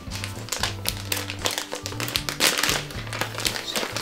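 Plastic wig packaging crinkling and rustling in irregular bursts as it is handled and opened, over background music with steady bass notes.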